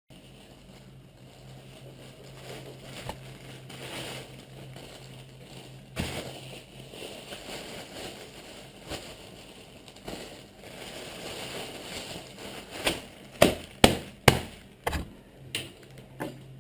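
Meat being pounded with an airsoft gun used as a tenderizer: scattered knocks and handling noise, then a quick run of about seven sharp blows on the meat near the end. A faint steady hum sits underneath.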